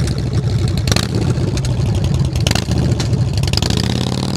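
Harley-Davidson Dyna's V-twin engine running loud as the motorcycle pulls away, with a low, rapidly pulsing exhaust note.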